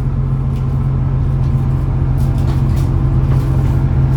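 Steady low drone of a 2600 Class diesel railcar heard from inside the passenger cabin, with a few faint clicks and rattles about two to three seconds in.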